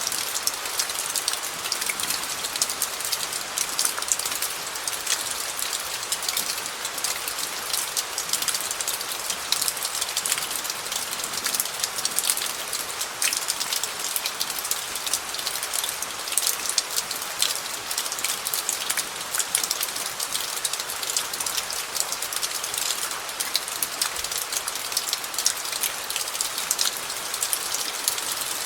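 Steady rain falling on gravel: a dense, even patter of countless small drop ticks striking stones, bright and crisp, without let-up.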